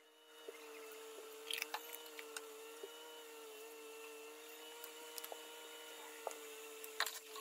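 Chunks of meat sizzling in an aluminium pot on a gas stove, with scattered crackles and pops over a steady low hum; the crackling grows denser near the end.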